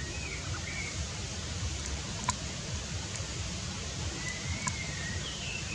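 Steady outdoor background hiss over a low rumble, with a few faint, short whistled calls: one pair about half a second in and two more near the end, plus two faint clicks.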